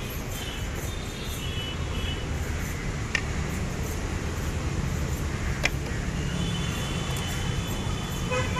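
Steady road traffic rumble, with two sharp clicks about three and five and a half seconds in and a vehicle horn sounding near the end.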